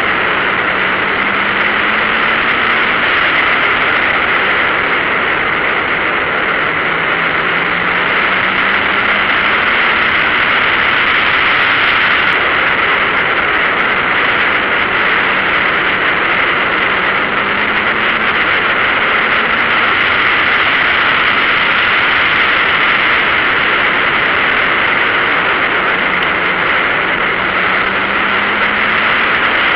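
Steady rush of wind and road noise from a track car at about 55–60 mph, with the engine faintly underneath, its pitch slowly rising and falling several times as the throttle is worked through the corners.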